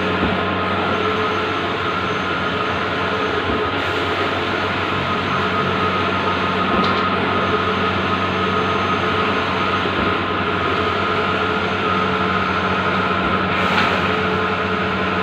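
Bluewin large-format outdoor printer running: a steady mechanical hum and whir with several constant tones and a few faint ticks.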